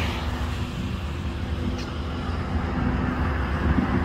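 Steady low rumble and road noise of a moving vehicle, with a faint steady hum.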